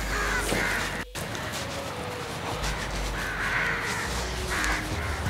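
Crows cawing outdoors, a few separate calls spread through the few seconds.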